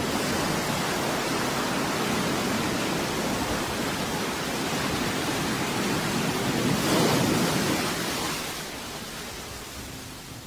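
Sea-surf sound effect: a steady wash of breaking waves, swelling about seven seconds in and then fading away.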